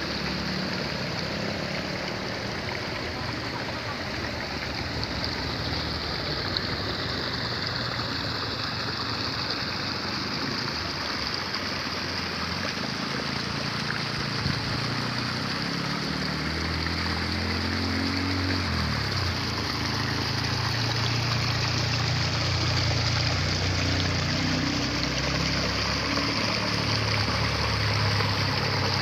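Water trickling and running steadily through rice-paddy irrigation channels. From about halfway through, a low droning hum joins underneath.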